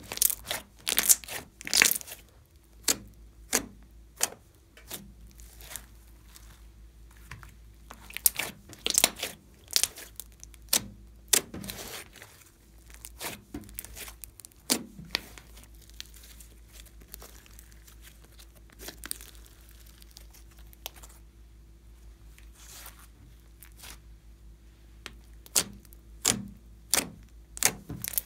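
Hands kneading, stretching and pressing fluffy slime: sharp pops and crackles as the stretched slime tears, coming in clusters, with a quieter stretch in the middle.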